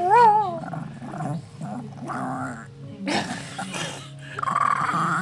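Small dog growling steadily in a low rumble, with a wavering, rising-and-falling note right at the start.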